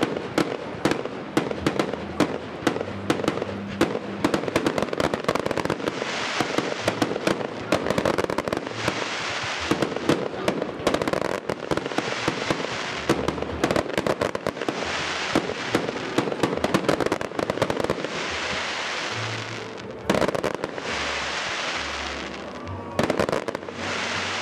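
Fireworks display: aerial shells bursting in a fast, continuous run of bangs and sharp cracks, with waves of dense crackling hiss lasting a few seconds each.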